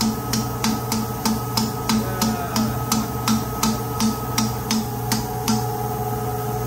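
Valve being lapped on a Yanmar auxiliary-engine cylinder cover: the spring-lifted valve taps back onto its seat in a steady rhythm, about three clicks a second. Under it runs the steady hum of engine-room machinery.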